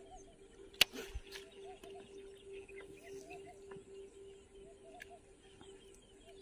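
Faint bird calls and short chirps repeating, over a steady faint hum. A single sharp click sounds about a second in.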